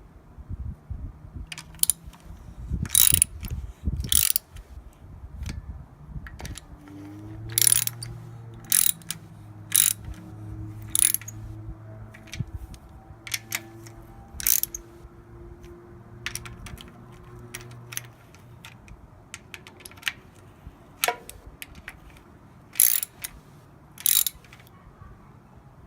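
Ratchet wrench clicking in short, irregular bursts as the nuts on the oil filter housing cap are run down and tightened.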